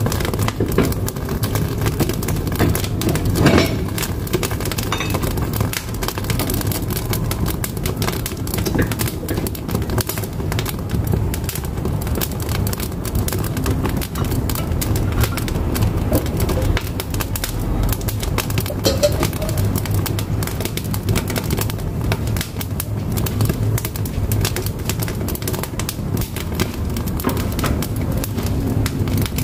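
Firewood burning in a wood-fired cookstove: dense, steady crackling over a low rumble of the flames, with a louder pop about three and a half seconds in.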